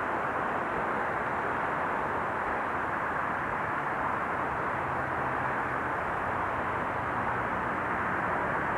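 Freight train of loaded oil tank wagons rolling along the track as it draws away, a steady rolling noise, with a faint low steady hum from the Class 47 diesel locomotive hauling it.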